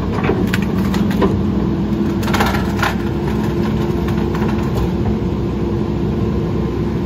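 Mack LE rear-loader garbage truck's engine running steadily, with scattered crackles and snaps of leafy tree branches being handled at the hopper in the first few seconds.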